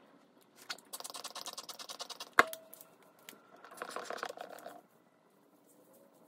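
Braided hair being handled and wound on flexi rods: a stretch of fast, even rustling clicks, one sharp click about two and a half seconds in, then another brief burst of rustling.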